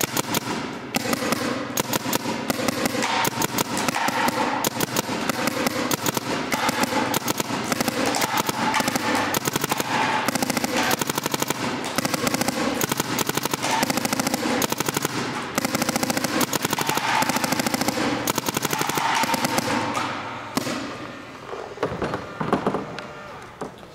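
Two electronic paintball markers, a Planet Eclipse GSL and a Twister LV1, fired side by side in fast strings of shots. The shots make a dense, rapid popping for about twenty seconds, then stop, and a few knocks follow as the guns are laid down.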